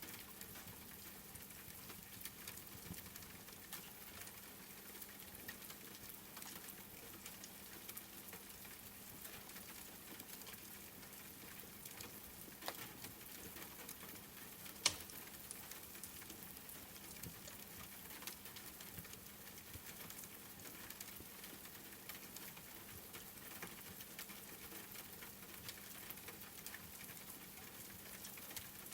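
Wood fire crackling with many small pops, one sharper pop about halfway through, over a steady patter of rain.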